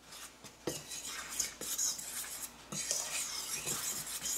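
Metal fork stirring and scraping dry cornstarch and flour in a stainless steel bowl, with occasional sharp clinks of the fork against the bowl.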